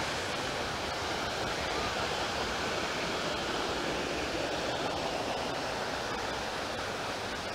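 Mountain stream rushing over rocks: a steady hiss of running water.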